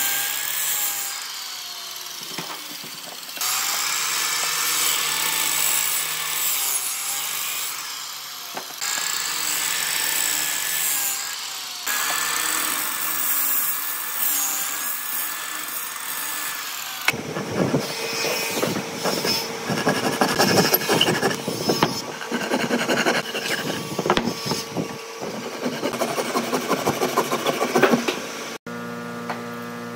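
Electric miter saw cutting through a stack of pine boards, several cuts in a row, each with a steady high whine from the blade and motor. About halfway through a rougher, rattling machine noise takes over, and near the end it breaks off into a steady hum.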